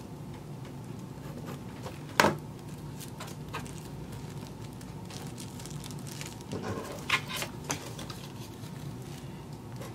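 Hands handling a tissue-paper sewing pattern on a cutting mat: light rustling and taps, with one sharp click about two seconds in and a few lighter ticks near the end, over a steady low hum.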